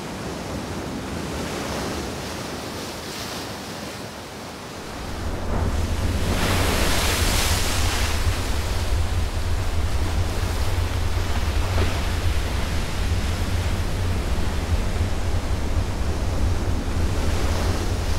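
Sea waves washing and wind blowing, with a deep low rumble coming in about five seconds in and a louder surge of surf a couple of seconds later.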